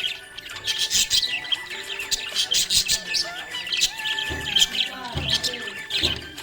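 Budgerigar chirping and warbling in quick, busy runs of short high chirps. Background music with a steady low beat is heard under it, most clearly in the second half.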